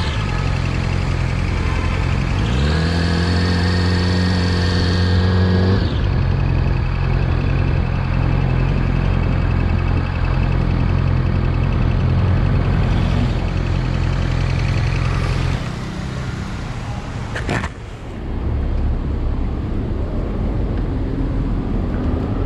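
Yamaha R6 inline-four motorcycle engine running steadily, revved up about two and a half seconds in and held for a few seconds before settling back into steady running; the level drops later and a single sharp knock comes near the end. The owner calls the sound the bike makes abnormal.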